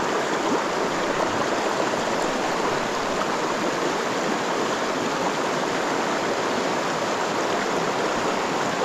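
Mountain river water rushing, a steady even rush with no change in level.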